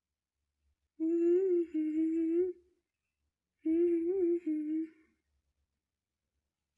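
Pet parrot making two soft humming calls, each about a second and a half long, at a nearly steady pitch with small wobbles: cute contented noises while being tickled.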